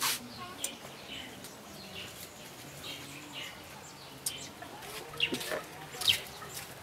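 Chickens clucking faintly, with a few short, sharp clicks scattered through.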